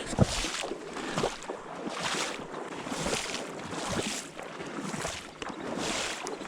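Water swishing in a slow, even rhythm, about once a second.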